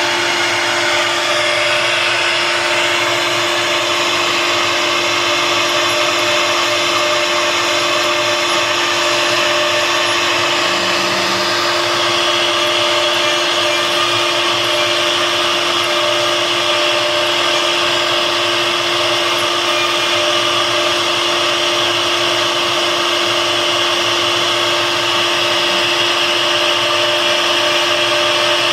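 CNC router spindle running steadily with a constant whine while its bit mills wood, with cutting hiss over it. The hiss turns brighter about twelve seconds in.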